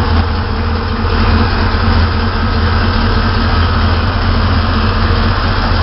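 A 1973 Jeep CJ5's 454 big-block V8 idling steadily, a deep rumble through Hedman headers and Hooker mufflers.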